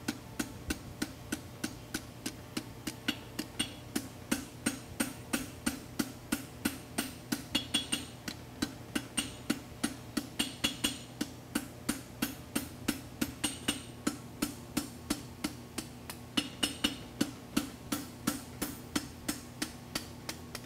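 Farrier's hand hammer striking red-hot folded concave steel bar stock on an anvil in a steady rhythm of about three blows a second, each blow ringing briefly, as the stock is forged and welded into a wedge horseshoe.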